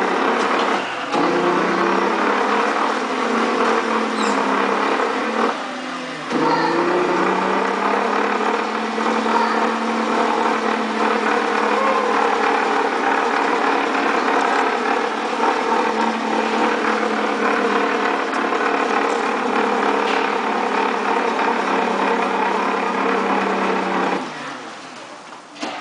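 Electric motor of a child's ride-on toy car running with a steady hum. It cuts out briefly twice, about a second in and around six seconds in, and glides back up in pitch as it pulls away again. It drops away near the end.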